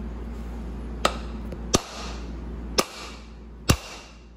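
Four sharp hammer blows, about a second apart, driving a new front seal into an E4OD/4R100 transmission pump body.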